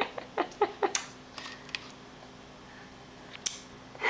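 A baby smacking his lips over a mouthful of tart applesauce: a quick run of short wet smacks in the first second, a couple more shortly after, and one more near the end.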